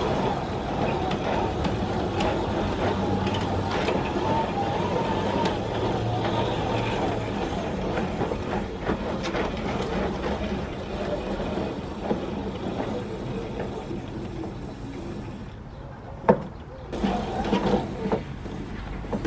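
Giraffe Tools wall-mounted pressure-washer hose reel paying out its hose: the drum turns with a steady rattling rumble as the hose is drawn through the guide. Near the end it eases off and one sharp click is heard.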